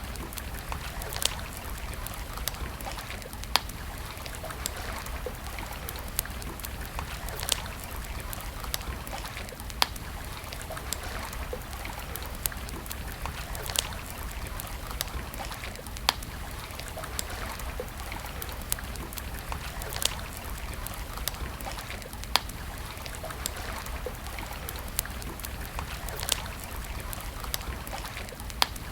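Wood campfire crackling: many small sharp clicks, with a louder pop every couple of seconds, over a steady rushing hiss.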